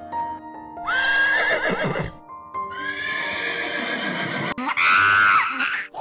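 Background music with three long animal calls laid over it, the last one loudest; the first and last drop in pitch as they end.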